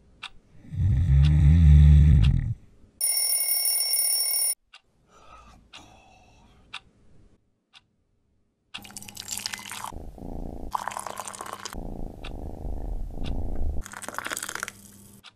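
A string of breakfast sound effects: a low heavy rumble about a second in, a brief steady ringing tone around three seconds, then several seconds of rough scraping and crunching from a knife spreading jam on toast, with tea pouring into a cup near the end.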